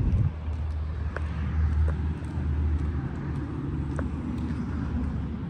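Street traffic: a steady low rumble of cars going by, heaviest in the first three seconds, with a few faint clicks.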